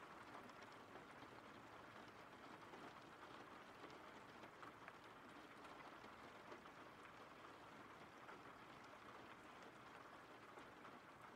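Faint steady rain: a soft, even hiss with scattered small drop ticks.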